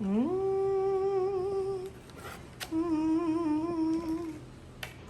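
A woman humming a catchy tune in two long held notes: she slides up into the first, then after a brief pause hums a slightly lower, wavering second note.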